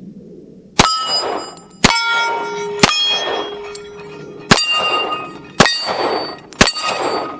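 Six pistol shots about a second apart, each answered by the ringing clang of a hit AR500 steel plate target. The shots are most likely from a .45 ACP handgun.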